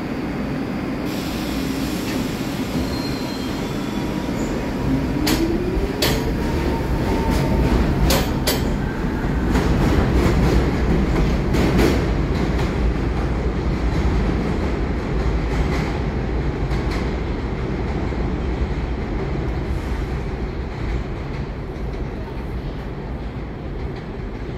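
New York City Subway R62 train on the 3 line pulling out of an elevated station. Its motors give a whine that rises in pitch as it speeds up, and its wheels clatter over the rail joints with a few sharp clicks. The rumble then fades as it moves away.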